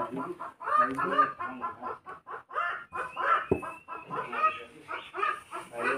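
Fowl clucking repeatedly, in short pitched calls several times a second, with one sharp knock about three and a half seconds in.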